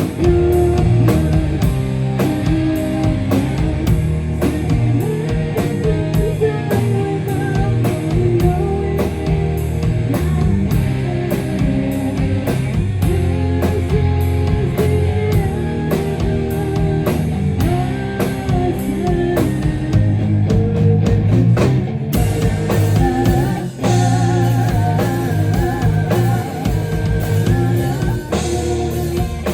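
A live band playing a song through the PA, with guitar and a drum kit keeping a steady beat.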